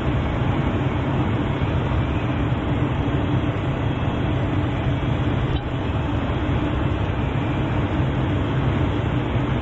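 Piper Super Cub's piston engine and propeller droning steadily on final approach, with a brief dip in level a little past halfway.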